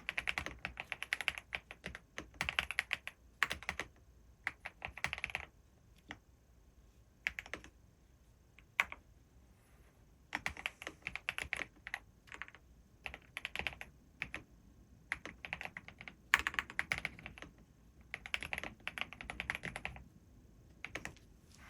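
Typing on a Gravastar Mercury K1 Pro mechanical keyboard: quick runs of clacking keystrokes broken by short pauses.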